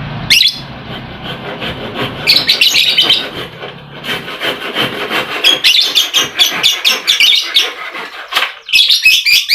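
Lovebirds chattering: rapid strings of shrill, high-pitched chirps in several bursts, with a sharp squeak near the start.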